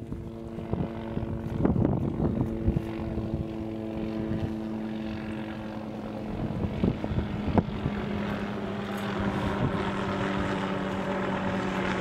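A boat's engine running steadily, over a wash of noise, with scattered sharp cracks.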